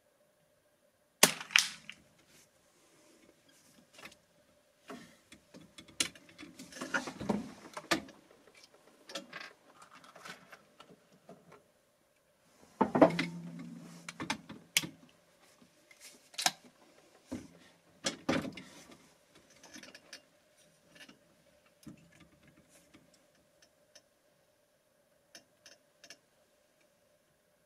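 Pedersoli Black Widow .22 LR rifle fired twice, about a second in and again about thirteen seconds in, the second shot the louder. Between and after the shots come irregular clicks and clatter from working the rifle's action and handling it.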